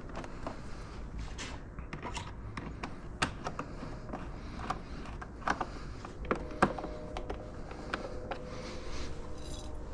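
Small scattered clicks, taps and scrapes of a screwdriver and screws being turned by hand into a motorcycle fairing.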